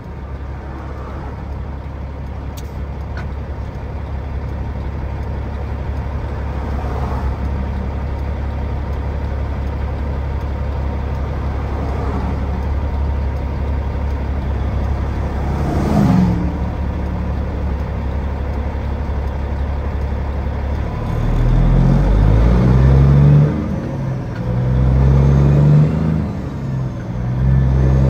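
Peterbilt 379 semi truck's diesel engine heard from inside the cab, running steadily at a low drone. A single sharp knock comes about two-thirds of the way in. In the last several seconds the engine note rises and falls in steps and grows louder.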